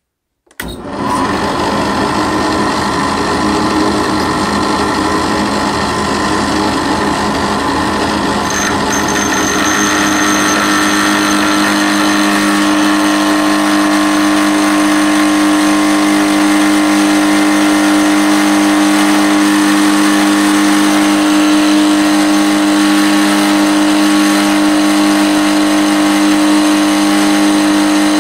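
Drill press converted to a mill starting up about half a second in and running steadily, its 14 mm insert-type end mill cutting hardened steel. A steady hum under the cutting noise grows stronger from about ten seconds in.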